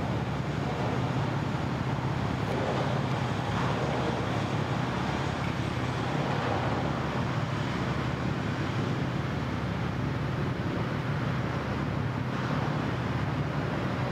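Steady low engine drone under a constant wash of outdoor background noise, with no distinct events.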